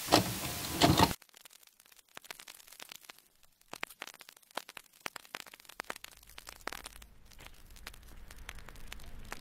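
A loud burst of hiss-like noise for about a second, cut off sharply. Then quiet outdoor street ambience with scattered light clicks, and a low steady rumble from about six seconds in.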